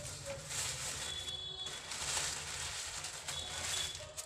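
Plastic bag rustling and crinkling as it is handled, swelling and fading several times.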